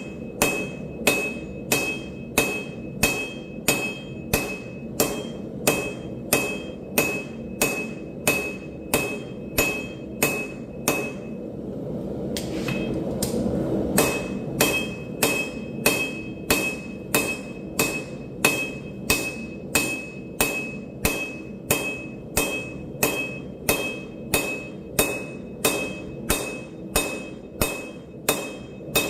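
Hand hammer striking steel on an anvil in a steady rhythm of nearly two blows a second, each blow with a bright metallic ring. About halfway through the blows stop for a couple of seconds while a rushing noise swells, then the hammering resumes.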